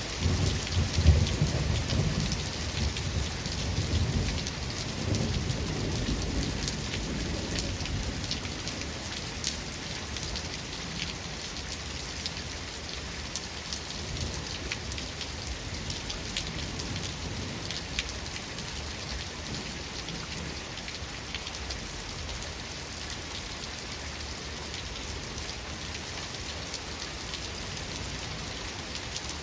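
Steady heavy rain hissing, with individual drops ticking on a surface. A roll of thunder rumbles in at the start, is loudest about a second in, and fades away over the next several seconds.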